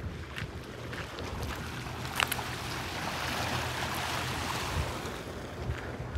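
Sea surf: a wave breaking and washing in, swelling through the middle and fading near the end, over a steady low rumble. A sharp click about two seconds in.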